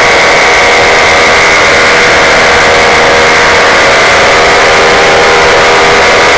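Paramotor engine and propeller running steadily in flight, a loud, even drone that holds its pitch.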